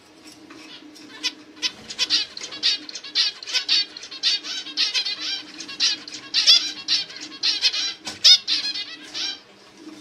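Zebra finch chirping: a quick, busy run of short high chirps, several a second. It builds up about a second and a half in and stops shortly before the end.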